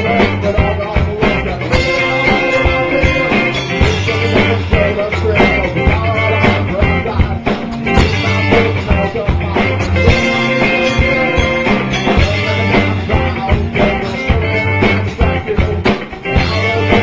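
A rock band playing a song live in the room, with a drum kit keeping a steady beat under guitars.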